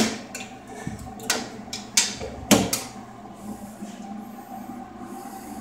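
Metal door of a circuit-breaker panel being pushed shut and latched: several sharp clicks and knocks, the loudest right at the start and two about two and a half seconds in.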